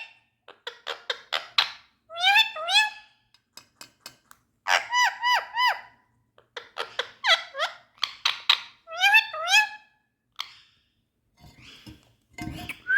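Indian ringneck parrot calling in quick clusters of three or four short chirps, with brief pauses between the clusters. The calls fade to a few faint sounds near the end.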